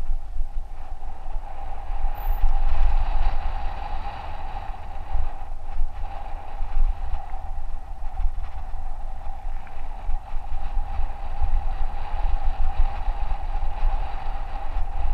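Mountain bike rolling fast down a dirt singletrack, heard from a camera mounted on the bike or rider: heavy wind buffeting the microphone, tyres rolling and crunching over the dirt, and a steady buzz running underneath.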